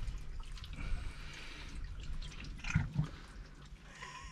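A shovel stirring through muddy water and sodden leaves on a flooded car floor, with faint sloshing and drips and a few small ticks.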